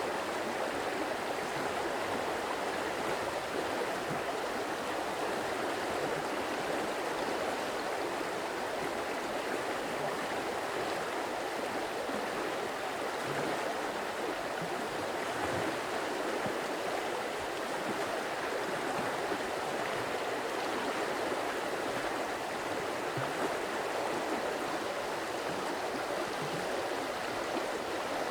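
Stream water running steadily, an even rush of flowing water that does not change over the whole stretch.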